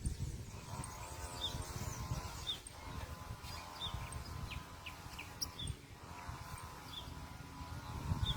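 Small birds giving short, high chirps, one every second or so. Under them runs an irregular low rumble and a faint steady hum.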